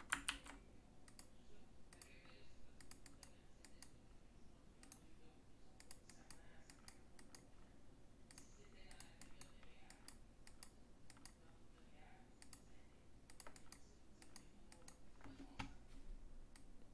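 Faint, irregular clicking of a computer keyboard and mouse.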